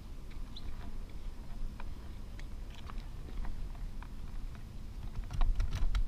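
Handling noise: scattered light clicks and taps of fingers on a handheld camera, over a low rumble, with a louder cluster of clicks near the end.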